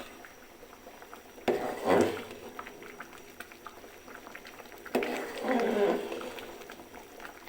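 Biryani rice and water boiling in a pot, with a steady fine bubbling. Two louder stretches start sharply about 1.5 s and 5 s in, each lasting about a second.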